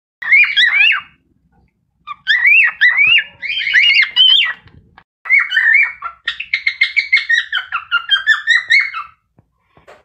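Cockatiel whistling its song: three phrases of rising and falling whistled notes, the last breaking into a quick run of short repeated notes before stopping about a second before the end.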